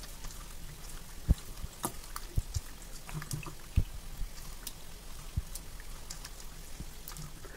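A hand kneading chicken pieces in a thick yogurt and spice marinade in a steel bowl: irregular wet squelches and slaps, with a few sharper knocks, the loudest about a second in and again near four seconds.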